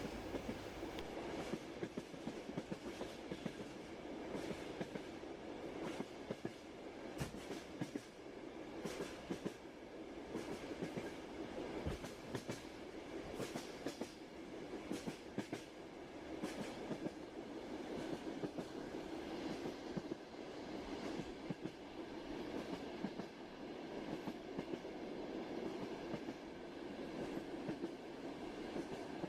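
Train running on rails: a steady rumble with irregular clicks and knocks of the wheels passing over rail joints.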